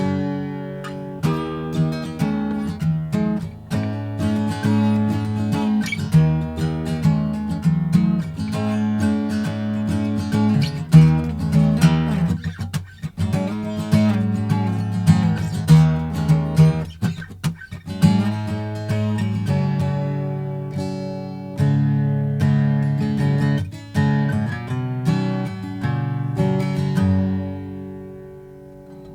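Gibson J-45 Deluxe acoustic guitar with rosewood back and sides and a Sitka spruce top, played with a pick on DR Sunbeam strings: a run of strummed and picked chords with short pauses, closing on a chord left to ring out and fade.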